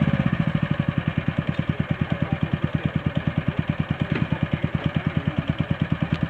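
Small petrol engine of a 1/5-scale Stridsvagn S (Strv 103) model tank idling with an even chugging beat, about eleven pulses a second.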